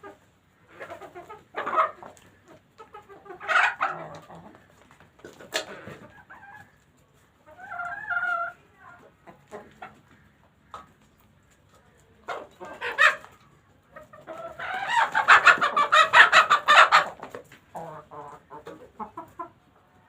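Chickens clucking and calling in short separate bursts, with one long, loud, rapidly pulsing call lasting about two seconds late in the stretch.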